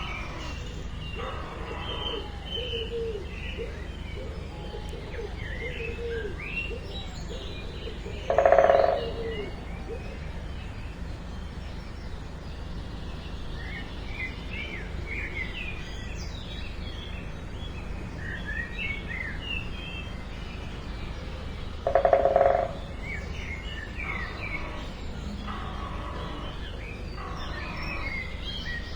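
Small birds chirping in many short, high notes over a steady low rumble. Two louder, lower-pitched calls of under a second each stand out, about a third of the way in and again about three quarters of the way in.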